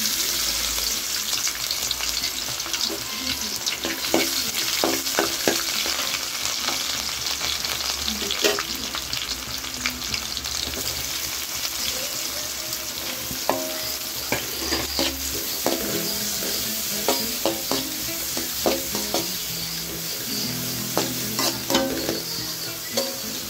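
Chopped ginger, garlic and sliced onion sizzling in hot oil in a metal wok, with a ladle scraping and clicking against the pan as it is stirred.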